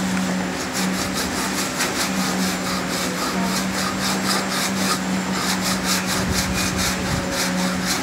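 Sanding block rubbed back and forth over a laser-cut wooden model airplane fuselage in quick, even strokes, about five a second, with a steady low hum underneath.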